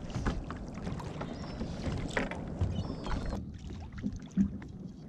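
Sea water lapping against a plastic sit-on-top kayak, with scattered knocks and clicks of handling on the hull. The wash drops away suddenly about three and a half seconds in, leaving quieter knocks and a couple of low thumps.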